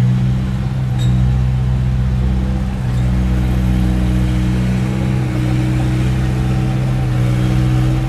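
Small crawler bulldozer's diesel engine running steadily under load as it pushes sand, a deep even hum that dips briefly about three seconds in.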